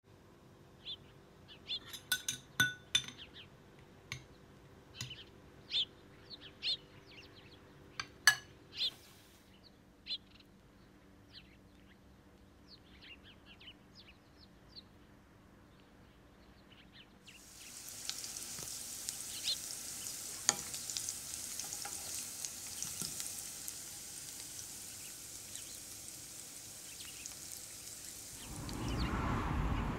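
A spoon clinking and scraping against dishes, with scattered sharp clicks over the first ten seconds. From about halfway, vegetables frying in a pan give a steady sizzle, which gives way to a louder low noise just before the end.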